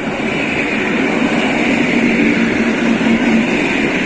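EN57 electric multiple unit passing close by: a loud, steady rumble of wheels on the rails with a hum, growing louder over the first second.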